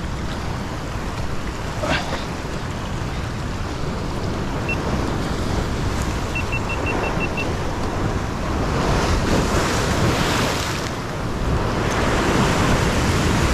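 Ocean surf surging and washing over a rock ledge, a continuous rush of breaking whitewater that swells louder about two-thirds of the way through and again near the end.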